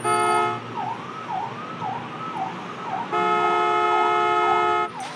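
Road traffic noise with an emergency-vehicle siren wailing rapidly up and down, about twice a second. A car horn honks twice, loudest of all: a short blast at the start, then a long blast of nearly two seconds starting about three seconds in.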